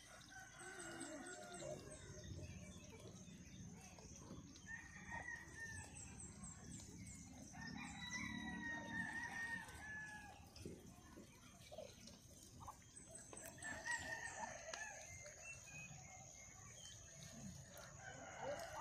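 Roosters crowing, faint: several long crows a few seconds apart, some overlapping.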